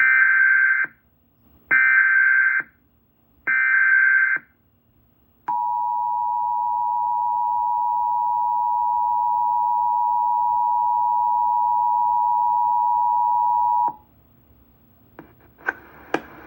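Emergency Alert System signal: three short bursts of the warbling SAME digital header data, each under a second with about a second between them, then the EAS two-tone attention signal, a steady dual tone held for about eight seconds before it cuts off. A few faint clicks follow near the end.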